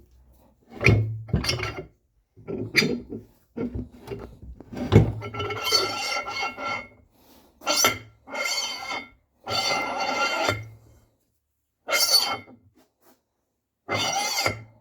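Metal parts being scraped and knocked against each other in about eight short bursts, some with a faint ringing, as in hand work on steel tractor parts.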